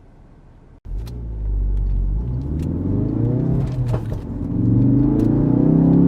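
Stock Ford Focus RS's turbocharged 2.3-litre four-cylinder exhaust accelerating hard from a standstill, its pitch climbing, dropping at an upshift about four seconds in, then climbing again. Exhaust pops and crackles sound twice during the run.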